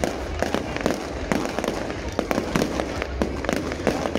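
Aerial firework shells bursting in quick succession, a dense run of sharp bangs about three or four a second over a low rumble.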